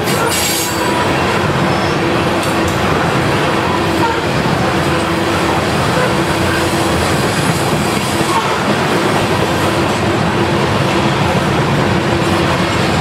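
Freight train of covered hopper cars rolling past at close range: a steady rumble and clatter of steel wheels on the rails, with a faint steady whine running under it.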